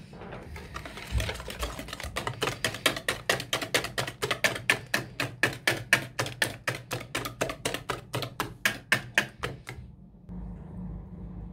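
Wire balloon whisk beating eggs in a bowl: the tines clicking against the bowl's side in a fast, even rhythm of about five strokes a second, stopping about ten seconds in.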